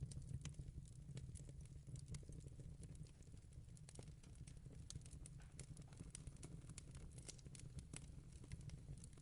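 Wood fire in a fireplace crackling: frequent small sharp pops and snaps at irregular intervals over a low, steady rumble.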